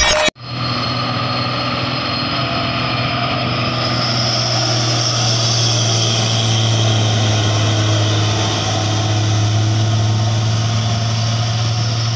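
Hino 500 three-axle truck's diesel engine pulling hard in a steady low drone as the loaded truck crawls up a steep incline. A higher hiss rises over the engine from about a third of the way in.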